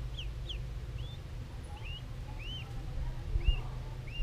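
Ducklings peeping, a run of short high chirps about two or three a second, over a steady low hum. A low thump comes about three and a half seconds in.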